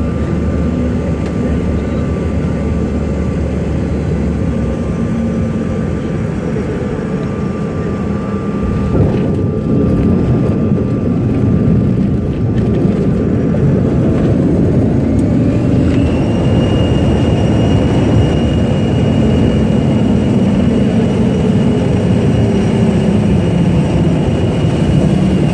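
Cabin noise of a CRJ-200 regional jet landing: steady roar of its rear-mounted GE CF34 turbofans and airflow, with a thud about nine seconds in as the wheels touch down, after which the noise grows louder. About fifteen seconds in the engine whine rises and then holds, the engines spooling up as is typical of reverse thrust during the landing roll.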